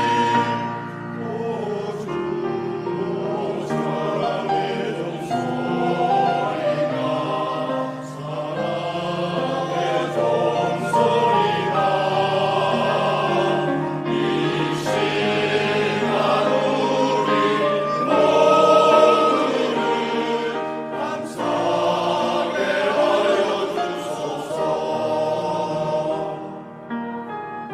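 Church choir singing a Korean gospel song in parts, with piano accompaniment. The voices drop away near the end.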